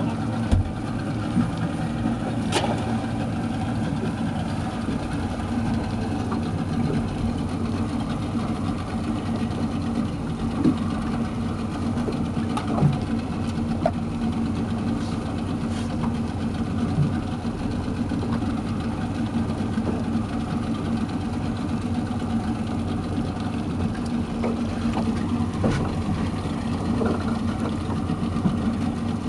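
Outboard motor of an open fishing boat running steadily at low throttle, with a few short sharp knocks now and then.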